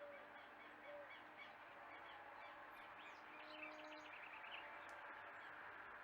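Faint forest birdsong: low, short notes repeated about once a second under higher chirps, with a quick run of rising notes about three and a half seconds in.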